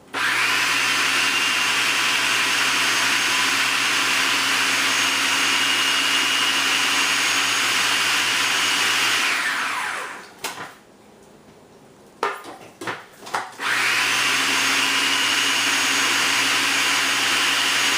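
Electric mixer motor running steadily while it blends food colouring into buttercream frosting. It winds down about halfway through, a few knocks follow in the pause, and then it starts up again.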